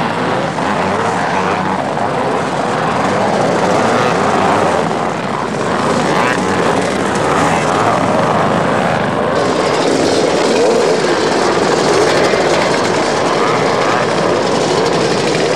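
Many motorcycle engines running and revving together, the wavering buzz of several motocross dirt bikes practising on the track. About nine seconds in the sound changes as a group of road motorcycles rides up.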